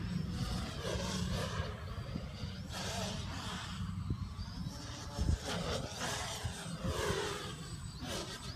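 450-size quadcopter's electric motors and propellers whining, the pitch sweeping up and down again and again as the throttle changes through its manoeuvres. A low rumble of wind on the microphone runs underneath.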